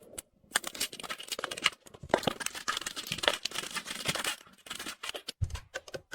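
Rustling and crinkling of material being handled, in quick irregular crackles with brief pauses.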